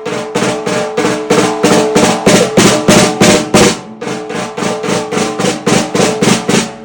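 14x8 maple/mahogany alternating-stave snare drum at medium tuning, played in a steady run of strokes about five a second, each hit ringing with a clear pitch. It has a coated top head and the snares are on.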